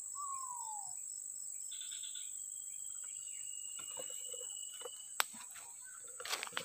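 Steady high-pitched insect drone throughout, with a bird's single falling whistle at the start and a few brief chirps about two seconds in. From about four seconds in come handling noises: clicks, one sharp click just after five seconds, and rustling as the fishing rod and a plastic bucket are moved.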